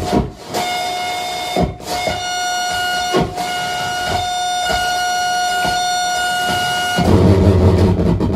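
Saxophone feedbacker sounding a steady, held feedback tone with overtones, broken by a few knocks, as in harsh noise improvisation. About seven seconds in it switches abruptly to a louder, dense low, grinding noise.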